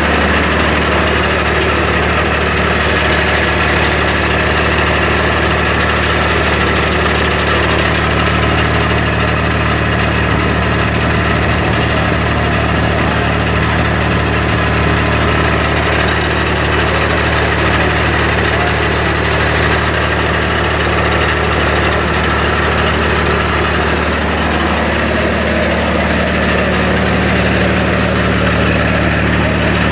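Ingersoll 4020 garden tractor engine running steadily, just restarted after being flooded.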